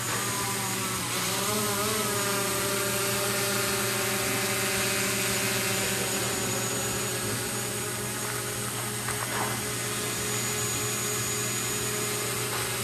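Quadcopter drone's motors and propellers whining steadily, the pitch wavering slightly as it manoeuvres.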